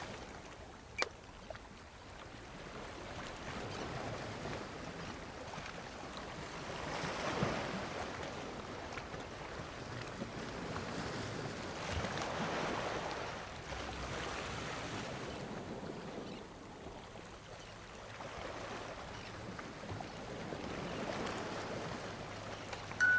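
Shoreline ambience of wind and lapping water: a steady hiss that swells and fades a few times, with one sharp click about a second in.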